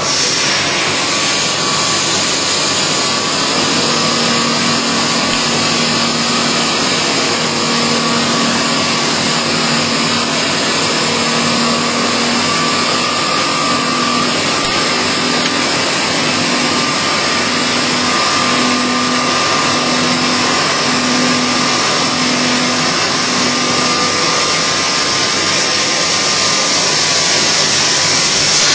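CNC machine cutting a workpiece: a steady, even mechanical noise with a faint whine, and a low tone that comes and goes about once a second through the second half.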